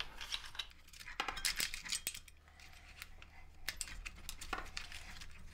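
Faint, scattered clicks and light knocks of a removed motorcycle rear fender assembly being handled while its indicator wires are pulled through, plastic and wiring rubbing and tapping.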